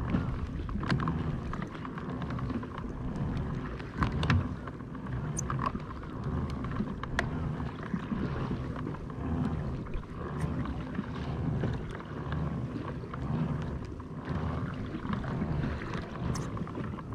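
Water sloshing against a kayak's hull in a low rushing that swells and fades unevenly, with a few light clicks and knocks.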